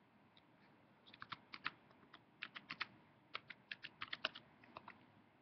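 A faint, quick, irregular run of light clicks and taps, in clusters, starting about a second in and stopping near the end.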